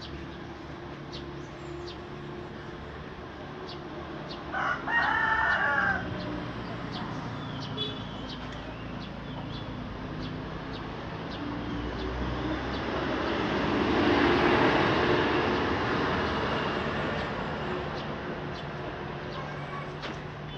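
A rooster crows once, loudly, about five seconds in, over a steady low hum. Later a rushing noise swells and fades again.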